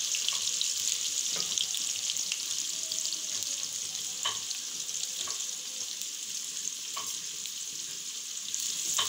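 Sliced onions sizzling in hot oil in an aluminium karahi, with a wooden spatula stirring them. A few short sharp ticks stand out from the steady sizzle.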